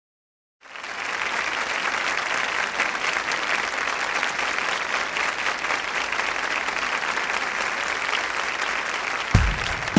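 Concert audience applauding at the start of a live recording, beginning about half a second in and holding steady; near the end a few bass drum beats come in as the song starts.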